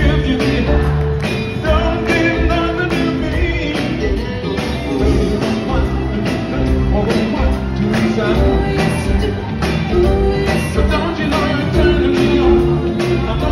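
Live band playing with a steady drum beat, heard from among the audience.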